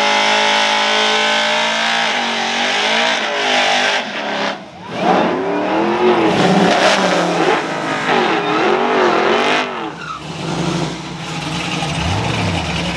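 GMC S-15 pickup's engine held at high revs for a burnout with the rear tires spinning, then revved up and down several times in quick swells, and settling to idle near the end.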